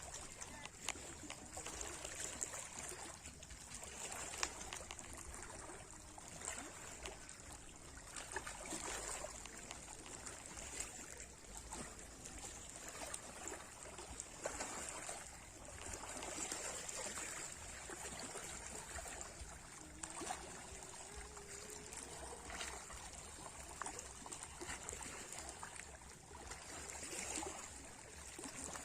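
Small sea waves lapping and washing, with water trickling and splashing in gentle swells that rise and fall every few seconds.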